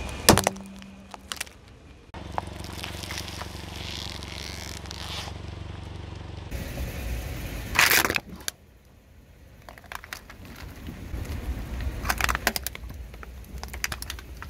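Car tyre rolling over and crushing objects: sharp cracks just after the start, a loud crunch about eight seconds in, and a cluster of crackles near the end, with a car engine humming steadily in between.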